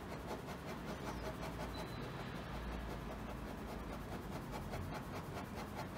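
Ballpoint pen scratching on paper in rapid, short, parallel strokes, lightly shading.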